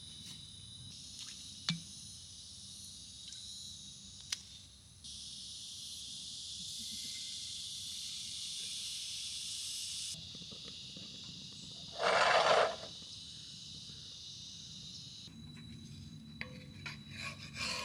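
Steady high-pitched insect buzzing, louder for a stretch in the middle, with a few light clicks and one short, loud burst of noise about two-thirds of the way through.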